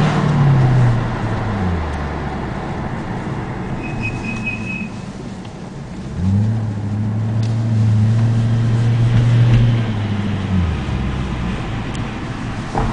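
BMW 545's brakes making a low humming groan over the car's road noise. It falls in pitch during the first two seconds, then comes back at about six seconds and holds steady for about four and a half seconds before dying away.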